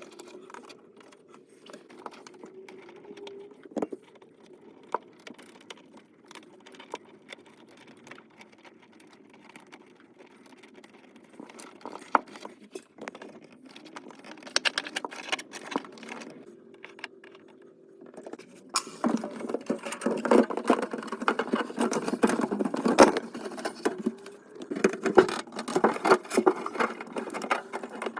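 Hands working on parts: scattered clicks, rattles and scraping over a steady low hum. The handling turns louder and busier about two-thirds of the way in.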